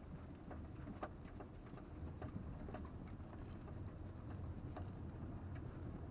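Low steady rumble of a 2020 Toyota RAV4 XLE driving slowly over a rough desert dirt track, heard from inside the cabin, with scattered clicks and knocks as the tyres go over stones and bumps.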